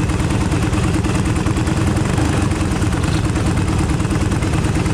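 Go-kart engine idling steadily, a rapid even pulse with no revving, while the kart sits stationary.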